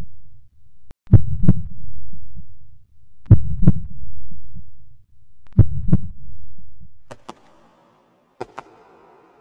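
A heartbeat sound effect: three loud lub-dub double thumps, each followed by a low rumbling swell, about every two and a quarter seconds. About seven seconds in the beat stops, leaving faint paired clicks over a soft hiss.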